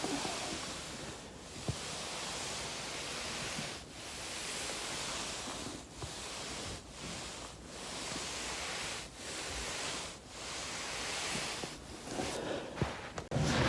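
Foam roller rolling back and forth under a body, a rushing swell of noise with each stroke and a dip at each turn every second or two. One sharp click a little under two seconds in.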